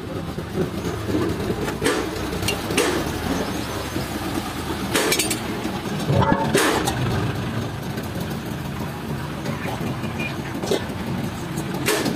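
Steady low mechanical rumble, with half a dozen sharp clicks and knocks scattered through it.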